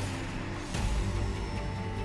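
Background music with a steady low bass and held tones, swelling about three-quarters of a second in.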